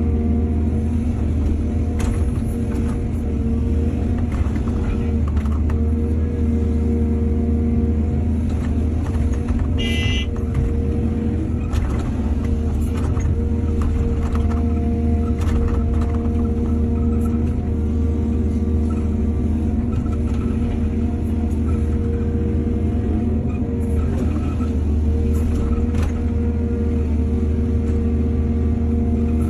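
Heavy diesel engine of an excavator running steadily, with scattered knocks and clanks and a brief metallic ring about ten seconds in.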